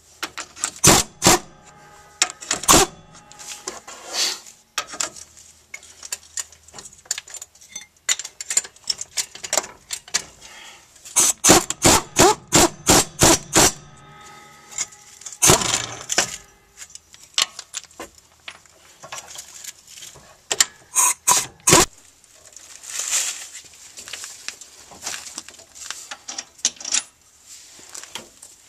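Hammer striking the rear strut's lower mounting bolt to drive it out of the knuckle: sharp metallic knocks in several bursts, the longest a quick run of about nine blows in the middle.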